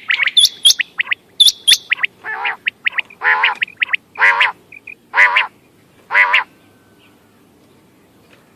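Quail calling: a run of quick, high chirps, then a series of about five harsher calls, roughly one a second, which stop near the end.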